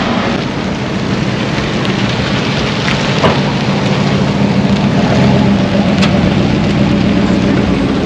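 A car engine running at low speed, a steady low hum that grows a little louder about halfway through, over a steady noisy rush.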